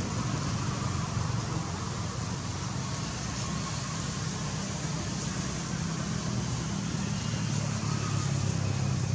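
Steady outdoor background noise: a continuous low rumble with a hiss above it, with no distinct events.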